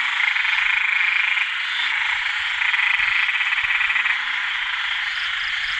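A dense chorus of male อึ่งแดง narrow-mouthed frogs calling to attract females after heavy rain: a continuous, finely pulsed din that swells louder twice in the first few seconds. A few faint, short, low calls sound beneath it.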